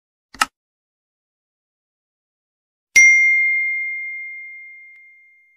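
Subscribe-button animation sound effects: a short click, then about three seconds in a single bell ding that rings on one steady high tone and fades out over about two seconds.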